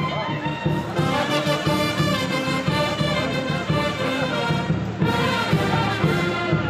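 Brass band playing live: trumpets and trombones sounding held notes over a steady, regular beat.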